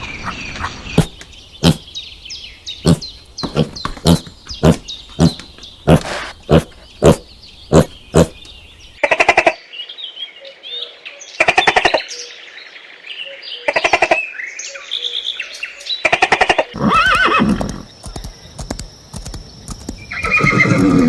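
Horse whinnying several times, each call about a second long. Before the calls comes a run of sharp knocks, about one and a half a second.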